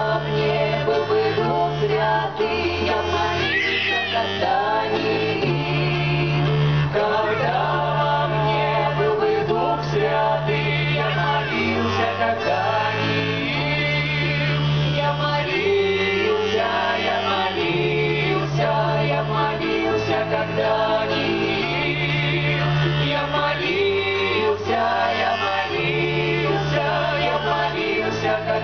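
A folk ensemble singing a 17th-century Russian spiritual song (a kant) in several-part harmony. Accordion and guitar accompany them, with sustained low bass chords that change about every two seconds.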